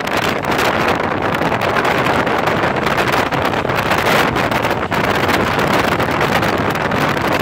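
Loud, steady rush of wind buffeting the microphone, over the running noise of a moving vehicle.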